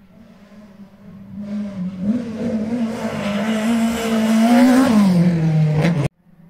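Rally car engine running hard as the car approaches, growing louder and passing about five seconds in, its note dropping as it goes by. The sound cuts off suddenly about six seconds in.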